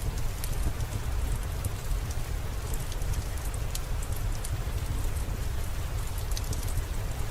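Steady rain falling, with a deep rumble underneath and scattered sharp ticks of drops.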